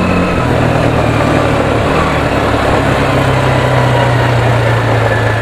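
Quad bike engine running steadily under way, its note dropping about half a second in and then holding, with a rushing noise of wind and motion over it.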